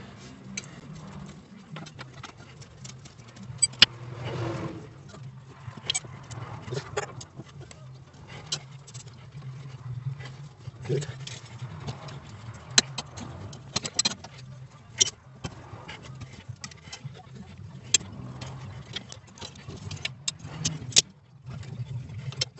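Scattered metallic clicks and clinks of an open-end wrench on the mounting bolts of a rear drum-brake wheel cylinder as it is unscrewed, over a steady low hum.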